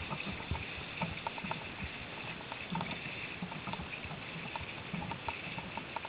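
Mountain bike rolling along a dirt woodland trail: a steady rushing noise with irregular small rattles and knocks from the bike going over bumps.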